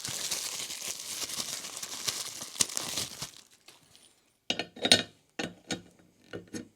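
Crinkling, rustling handling noise for about three seconds, then a short pause and a handful of sharp clicks and knocks as office chair casters and parts are handled.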